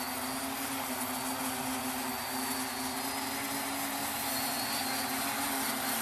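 Home-built quadcopter's four electric motors and propellers running as it hovers low, a steady hum with a pitched drone that grows a little louder near the end.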